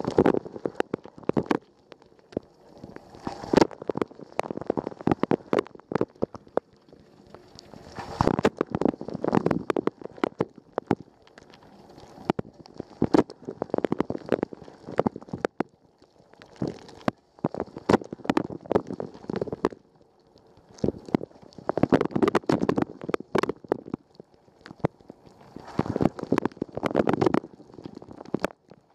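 Water spraying and splashing inside a running Rosenlew dishwasher during the wash cycle, heard from inside the tub: rushing, gurgling surges with crackling droplet hits, swelling and easing every four or five seconds.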